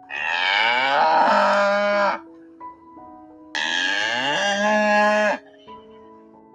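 A cow mooing twice, each moo about two seconds long and starting with a rising pitch, over soft background music.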